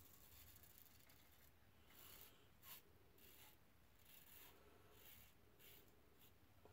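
Faint scratching of a 1964 Gillette Slim Adjustable double-edge safety razor cutting stubble through shaving lather, in a series of short strokes.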